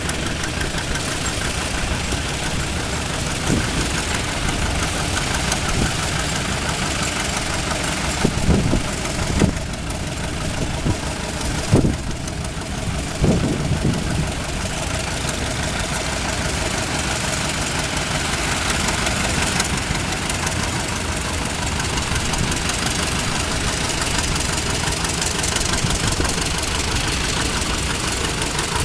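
Several vintage farm tractor engines running together as a line of old tractors drives past, a steady mix of engine chugging and exhaust noise.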